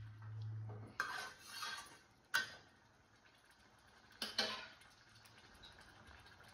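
Steel spoon scraping and clinking against a stainless-steel kadai while stirring chicken in gravy. There are a few sharp clinks, the loudest about two and a half seconds in and a last pair near the middle. A low hum stops about a second in.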